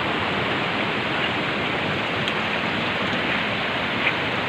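Mountain river rushing over rocks: a steady, even rush of flowing water.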